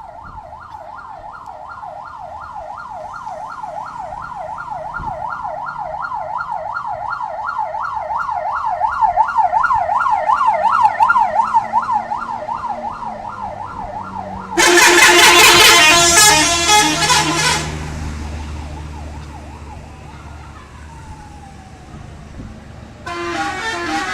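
PO Mahkota buses' telolet horns: a siren-style horn warbles rapidly up and down, growing louder, for about fourteen seconds, then a loud multi-tone musical horn blast sounds for about three seconds with a bus engine rumbling under it. Another horn blast starts about a second before the end.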